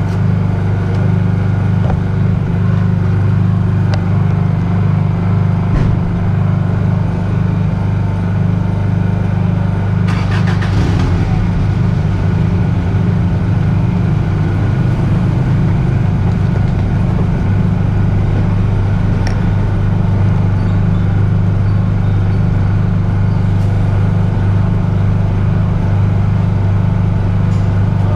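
Steady low engine drone, like a motor vehicle heard from close by or from inside, with a brief rattle about ten seconds in.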